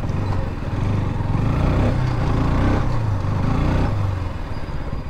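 Motorcycle engine running under way, its note rising and falling with the throttle over the middle few seconds.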